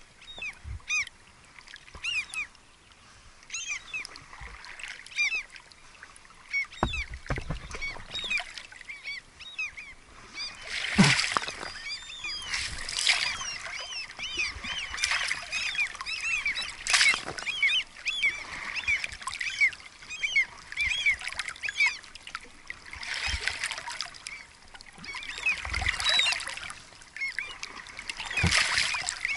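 Oars splashing in the water every couple of seconds as a small boat is rowed along, starting about ten seconds in, over many short high chirps throughout.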